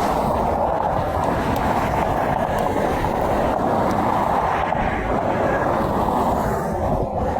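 Steady noise of interstate traffic going by, with no horn sounding.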